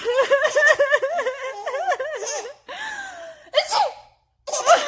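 High-pitched laughing in rapid repeated bursts, breaking off for a moment near the end and then starting again.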